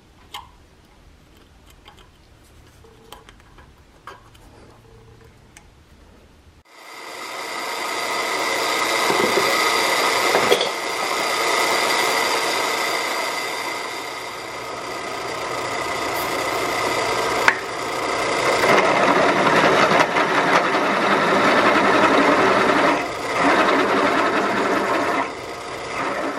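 Drill press running, its bit cutting a half-inch hole into a steel block. It is a steady whine over rough grinding that starts suddenly about a quarter of the way in, grows louder as the bit bites, and eases and swells a few times. Before it there are only a few light clicks.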